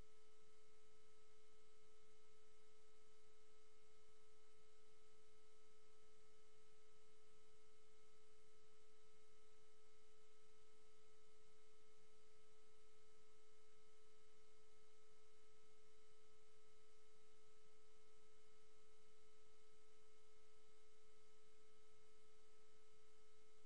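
A faint, steady electronic tone a little below 500 Hz, with fainter higher tones over it, unchanging in pitch and level.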